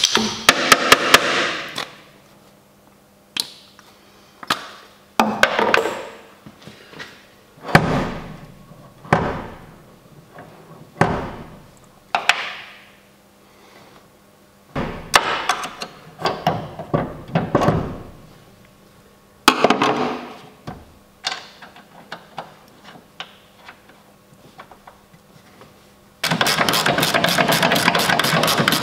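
Metal suspension parts clinking and clunking as they are fitted onto a coilover top mount, a string of separate knocks with short ringing tails. Near the end a socket ratchet starts clicking rapidly and evenly as the top nut is run down.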